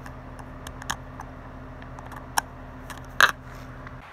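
Toothbrush sterilizer running with a steady low electrical hum, while its plastic case clicks and taps as it is handled, one sharper click about three seconds in.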